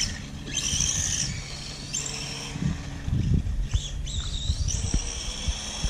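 LaTrax VR46 Rally 1/18 RC car's brushless motor, running on a 2S battery, whining high in short bursts that rise and fall with the throttle, then holding a steadier whine near the end.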